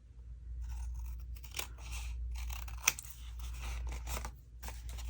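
Scissors cutting paper: an irregular run of snips beginning about half a second in, with one sharper click about three seconds in.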